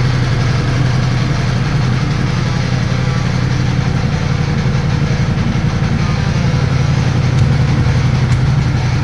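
Ducati Multistrada engine running steadily, its exhaust note holding an even pitch with no revving.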